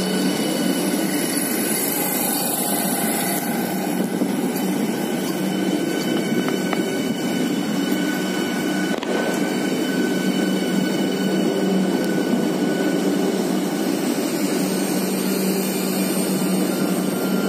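Steady hum and whine of the Train 18 electric multiple-unit trainset, a few constant tones over an even rushing noise, with no rhythm of wheel beats.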